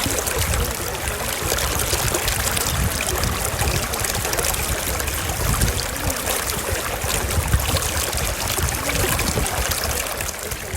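Running water: a steady, continuous rush and trickle of flowing water, beginning to fade at the very end.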